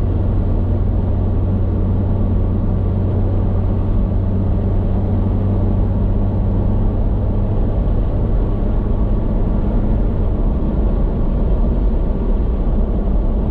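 Road and engine noise of a car on the move, heard inside the cabin: a steady low drone with tyre rush. The drone's pitch changes about ten seconds in.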